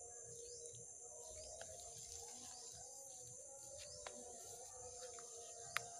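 Faint outdoor ambience: a steady high-pitched insect drone, with short bird chirps over it. A single sharp click comes near the end.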